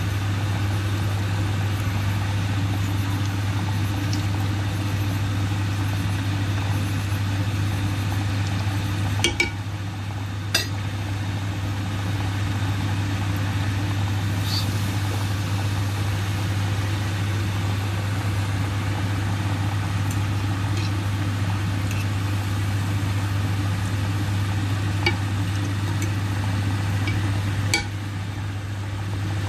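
Breaded chicken nuggets frying in hot oil, with an even sizzle over a steady low hum. A few sharp clinks of a utensil against the pan come through, around a third of the way in and again near the end.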